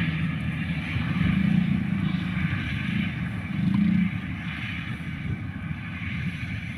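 Engine running steadily, with its hum rising in pitch and swelling a couple of times in the first half, then settling.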